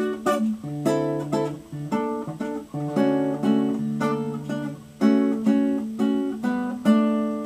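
Nylon-string acoustic guitar fingerpicked with bare fingers: plucked melody notes over a bass line, ending with a chord about seven seconds in that is left to ring and fade.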